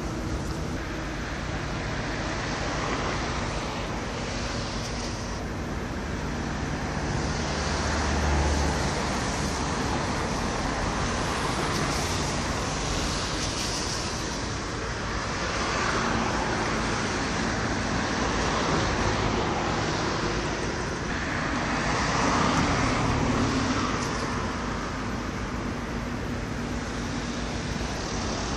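Container-port machinery and vehicle traffic: a continuous noisy rumble with a low engine hum underneath, swelling and fading every few seconds.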